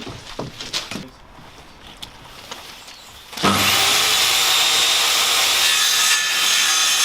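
A few light knocks of timber being handled, then about three and a half seconds in a power saw starts up suddenly and cuts steadily through wood.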